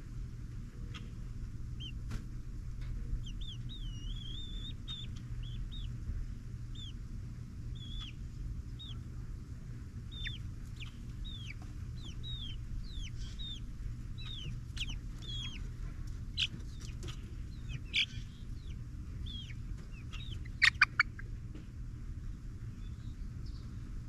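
Young pullets, Barred Plymouth Rocks, Ameraucanas and ISA Browns about eight weeks old, peeping: a long run of short, high, falling cheeps. Three loud sharp sounds come in quick succession near the end, over a steady low background rumble.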